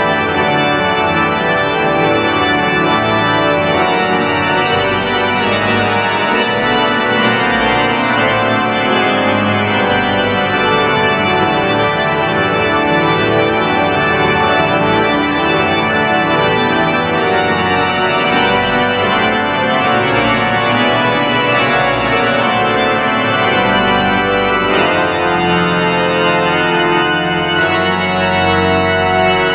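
Pipe organ playing a dense, loud passage in many voices at once, with a deep bass line from the pedals. About 25 seconds in, the upper voices thin out.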